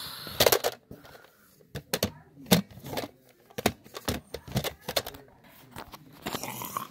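Plastic toys being handled: irregular sharp clicks and knocks, about a dozen, as a large toy is moved and bumped about.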